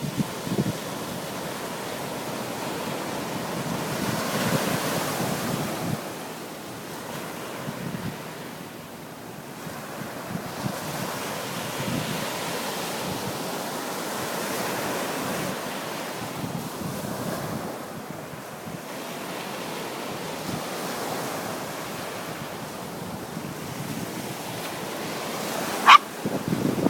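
Sea waves washing in and ebbing, with wind buffeting the microphone. Near the end comes one short, sharp, high-pitched sound, the loudest moment.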